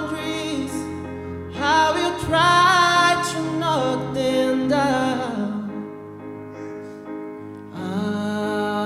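A male vocalist sings a slow pop ballad over instrumental accompaniment, holding long notes with vibrato: one phrase in the first half, a softer stretch, then a new phrase near the end.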